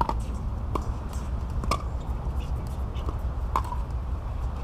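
Pickleball paddles striking the plastic ball: irregular sharp pops, about four clear ones plus fainter ones from farther courts, over a low steady rumble.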